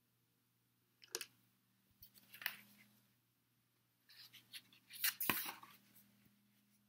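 Stiff cardboard pages of a board book handled and turned: a few faint clicks, then a brief cluster of clicks and rustling about five seconds in.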